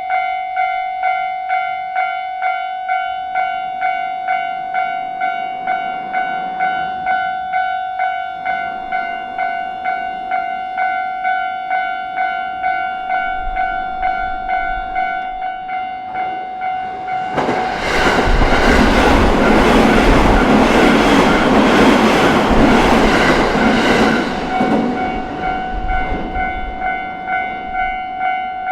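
Japanese level-crossing warning bell ringing at about two strokes a second. A train passes over the crossing for about seven seconds past the middle, its wheels clattering on the rails and briefly drowning the bell. The bell cuts off suddenly at the end as the crossing clears.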